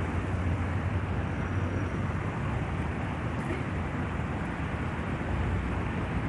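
Steady outdoor background noise: a low rumble under an even rushing hiss, with no distinct events.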